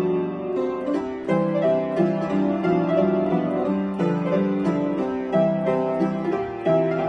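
Upright piano played in an arrangement from a medley of animal songs: a melody line over steadily repeated low chords.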